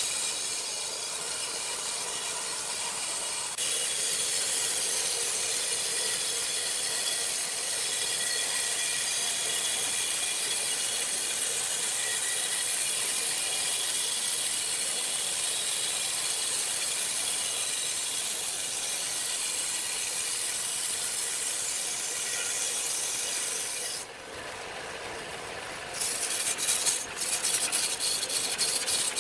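Wood being cut, shaved or sanded: a steady rasping hiss that changes abruptly a few times, with a rapid run of clicks near the end.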